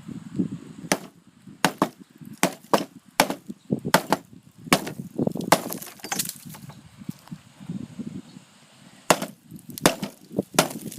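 A SOG Fast Hawk tomahawk striking and breaking up a brick: a rapid run of sharp, hard blows, then a pause of a couple of seconds before a few more strikes near the end.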